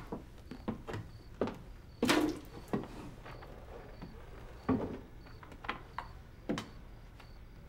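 Scattered short knocks and handling sounds in a small room, about eight in all, the loudest about two seconds in. A faint high ticking repeats a few times a second behind them.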